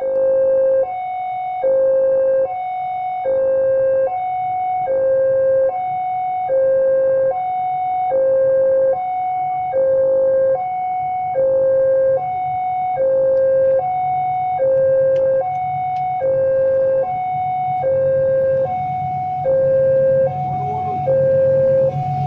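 Railway level-crossing warning signal sounding a steady two-tone alarm, high and low notes alternating about once every 0.8 seconds. A low rumble builds beneath it during the second half as a train approaches.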